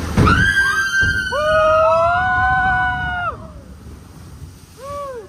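Several log-flume riders screaming together, several long, overlapping held screams at different pitches that stop together about three seconds in. A single short whoop follows near the end.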